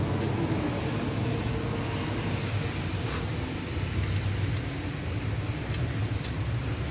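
Steady low hum and rushing background noise of a workshop, with a few light, sharp taps between about four and six seconds in as a metal flashlight prods rusted-through steel frame.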